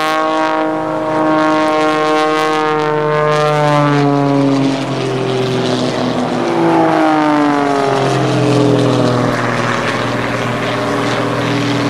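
Christen Eagle aerobatic biplane's propeller and flat-four piston engine running hard overhead. Its note sinks in pitch over the first few seconds, then a second fall comes around seven seconds in.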